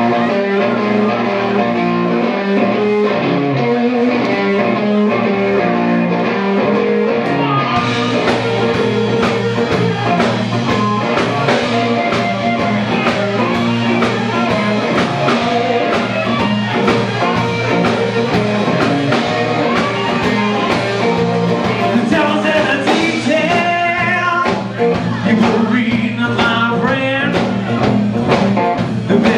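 Live blues-rock band playing: electric guitar, bass and drums, with a harmonica played into the microphone. The sound thickens about eight seconds in as the cymbals and full band come in.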